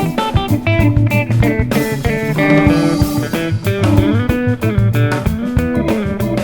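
Background music: guitar-led instrumental with bass and drums and a steady beat.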